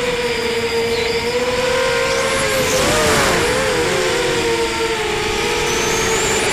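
ZMR250 FPV racing quadcopter's four T-Motor 1806 2300Kv brushless motors and 5-inch props whining, heard through the onboard camera with rushing wind over the microphone. The pitch holds steady at first. Around three seconds in, the motors' tones split apart and weave as the quad banks and dives.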